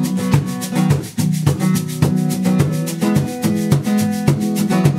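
Live acoustic country accompaniment: an acoustic guitar strummed in a steady rhythm, with a hand shaker played along in quick, even strokes.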